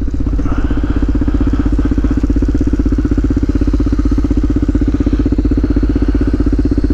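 Yamaha TTR250's single-cylinder four-stroke engine idling steadily, with an even, rapid pulse.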